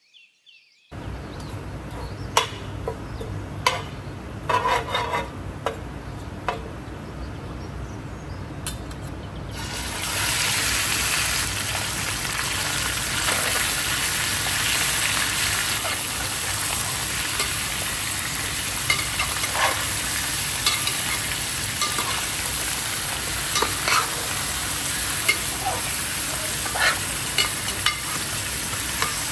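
Food frying in hot oil in a pan while being stirred: a few utensil clicks and knocks against the pan over a soft sizzle. About ten seconds in, the sizzling suddenly grows louder and holds steady, still with scattered scraping clicks.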